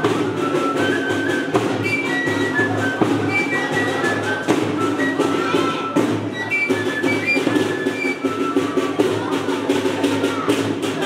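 Transverse flutes playing a lively melody of short high notes over a beaten drum.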